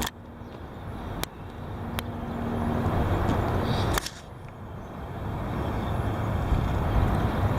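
Wind gusting: a noisy rush that builds over a few seconds, drops off suddenly about four seconds in, then builds again, with a couple of faint ticks early on.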